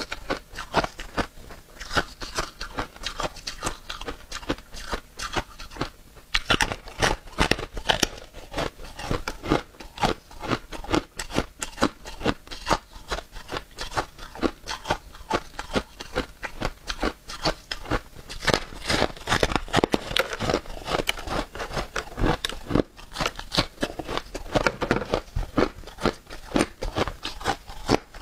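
Close-miked crunching and chewing of blue-dyed freezer frost: a steady run of crisp crunches, several a second, as the packed frost is chewed, picked up by a clip-on microphone near the mouth.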